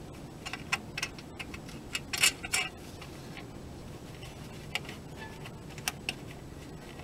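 Small metallic clicks and ticks of a nylock nut being spun by hand onto the threaded end of a steel U-bolt, with a quick cluster of clicks about two seconds in and a few single ticks later.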